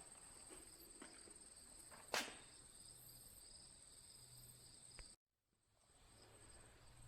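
Near silence: a faint steady high-pitched whine with a few faint clicks, the loudest about two seconds in. The sound cuts out completely for a moment just after five seconds in, then the faint background returns.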